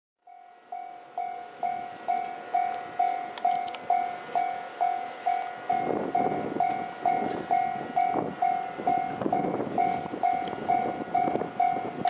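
Japanese level-crossing warning bell ringing steadily, one even ding about twice a second. From about halfway through, the rumble of the approaching Series 373 electric train on the rails joins in beneath it.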